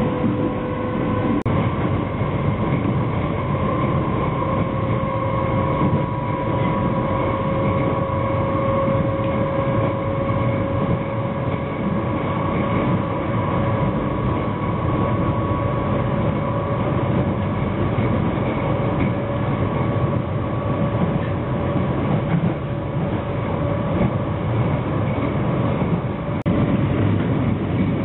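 London Underground District Line train running at speed, heard from inside the carriage: a steady rumble of wheels on the track with a constant traction-motor whine.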